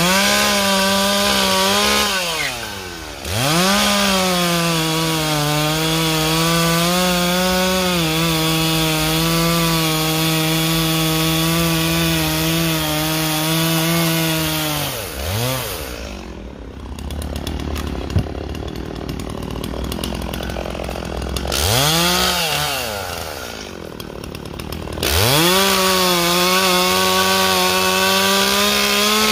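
Stihl two-stroke chainsaw cutting into a cedar block at full throttle. The engine dips briefly about three seconds in and drops to idle for several seconds around the middle. It revs up once, then runs at full throttle again near the end.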